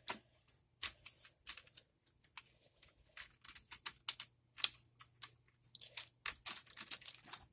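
Irregular small plastic clicks, taps and crinkling as the rubber key membrane and plastic parts of a membrane keyboard are handled and fitted back together.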